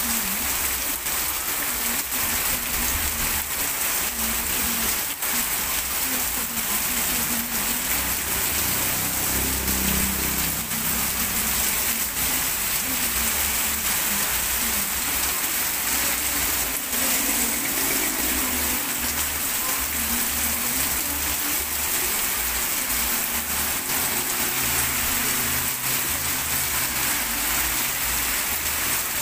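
Heavy rain pouring onto a paved street and its puddles: a dense, steady hiss of falling water.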